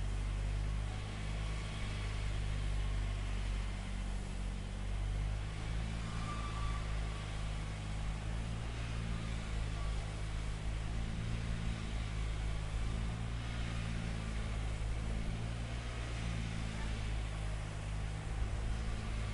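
Large crawler bulldozer's diesel engine running steadily, with a low hum that shifts slightly in pitch now and then.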